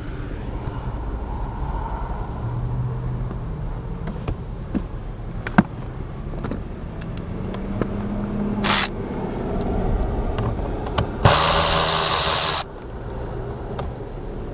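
Tool work on the blower motor's mounting screws under a car dashboard: scattered clicks and scrapes over a steady low hum, a short burst of tool noise about two-thirds of the way in, and a louder rushing burst lasting about a second near the end.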